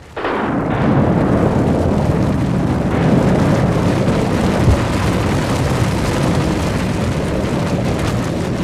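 A loud, steady rumbling roar that starts abruptly and holds, its weight low down.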